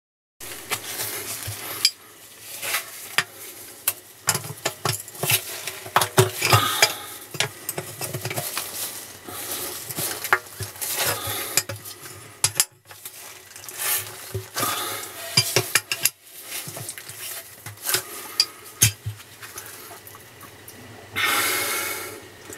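Irregular clinks, clatters and scrapes of rocks and metal being handled by hand inside a water meter box, around the meter and its valve. A short steady hiss comes near the end.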